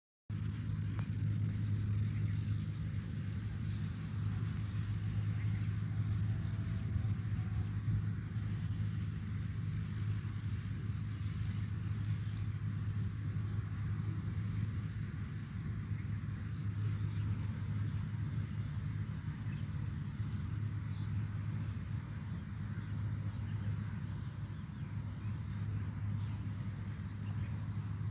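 Insects chirping in a steady chorus: a high, rhythmic trill that pulses about twice a second, over a constant low hum.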